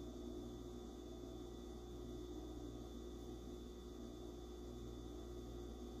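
Faint, steady hum and hiss of room tone, with no distinct sounds.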